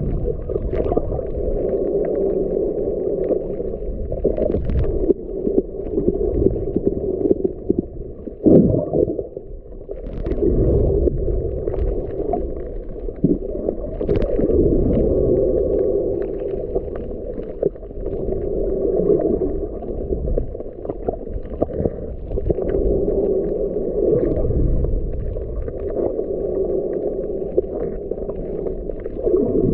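Muffled underwater rushing and sloshing of water, heard through an underwater camera while a snorkeler swims, with scattered faint clicks throughout and a brief lull about nine seconds in.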